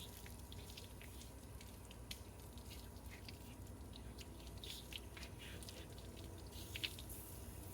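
Faint scattered drips and small wet splashes of water from a hose shower-head nozzle run slowly over a dog's fur.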